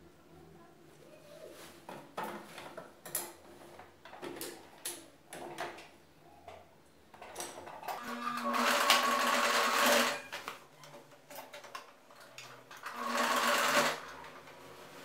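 Denim being handled and rustled, then a Singer domestic electric sewing machine stitching through denim in two short runs of about one to two seconds each: the first about eight seconds in, the second near the end.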